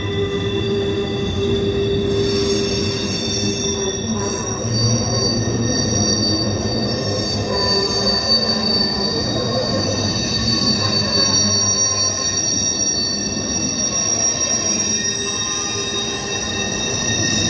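Container freight train rolling past, its wheels squealing on the rails in long, steady high tones over the continuous rumble of the wagons.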